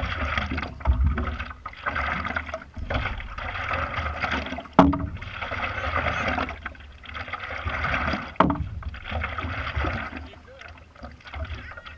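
Lake water splashing and lapping against the nose of a stand-up paddleboard as it is paddled, swelling every couple of seconds with the strokes, over a low wind rumble on the camera microphone. A single sharp knock comes near the middle.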